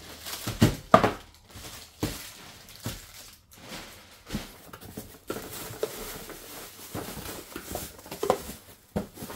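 Household items and their packaging being handled: irregular light knocks and clicks with short rustles, the sharpest knocks about a second in.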